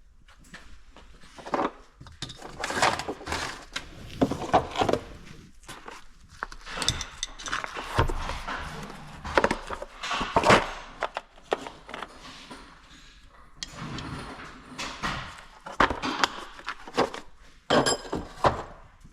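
Irregular knocks and clatter of tools and metal parts being handled and set down, a few with a brief metallic ring, the loudest about ten seconds in.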